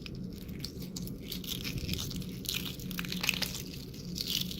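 Hard-boiled eggshell crackling and snapping as it is cracked and peeled off by hand, a steady run of small irregular crackles.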